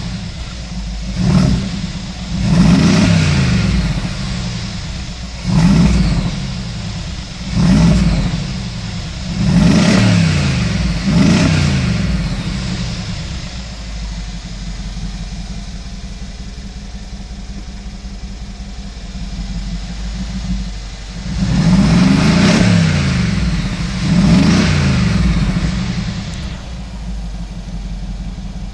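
Mercedes-AMG 5.5-litre biturbo V8 of a G 63 revving in short throttle blips, heard from the driver's seat. There are six quick rises and falls in revs over the first dozen seconds, then a steady idle, then two more revs near the end. The engine is running soon after a cold start.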